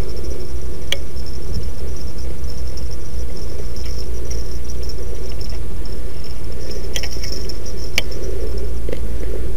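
A steady low rumble under a high, on-and-off chirring of insects, with a few sharp clicks: one about a second in, then two more near the end.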